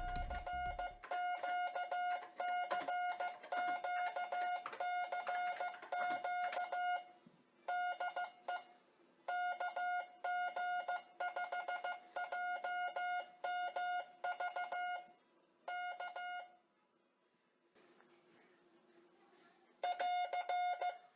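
Electronic Morse code keyer sending CW as a buzzy tone at one fixed pitch, keyed on and off in dots and dashes at an even pace. It stops for a few seconds near the end, then resumes briefly.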